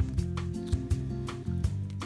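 Background music with a steady beat: bass notes and regular percussive hits.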